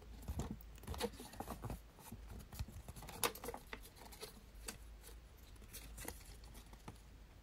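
Folded paper leaflet being unfolded and paged through by hand: faint, irregular rustles and crinkles of paper.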